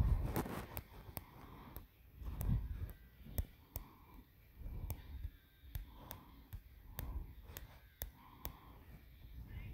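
Irregular light clicks, sometimes two or three a second, with soft rustling and a few low thumps.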